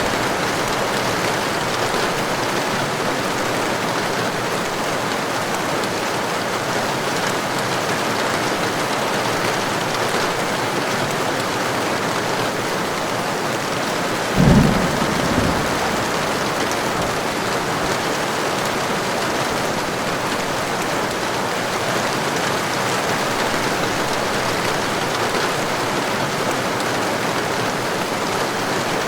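Heavy rain falling steadily, with one short clap of thunder about halfway through and a brief, weaker rumble right after it.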